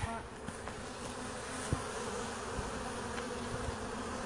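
Steady buzzing hum of a crowded honeybee colony, with many bees flying and bearding on the outside of the open hive box.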